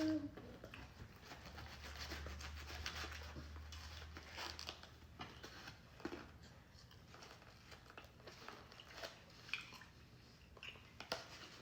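Eating sounds at a meal: chewing, with scattered light clicks and rustles from utensils and food, over a low steady hum.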